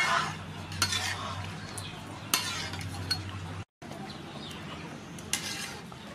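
Wire-mesh strainer ladle scraping and clinking against a metal wok as boiled squid is scooped out of the water, with a few sharp clinks. The sound breaks off abruptly past the middle, then fainter clinks follow.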